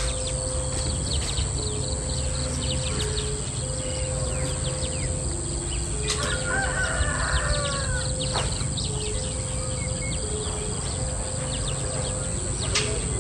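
Outdoor country ambience: a rooster crows once about halfway through, over birds chirping and a steady high insect drone. A slow tune of long held notes runs underneath.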